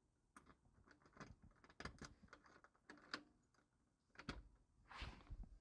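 Faint, irregular clicks and knocks, a dozen or so spread unevenly, with a short scraping rustle about five seconds in.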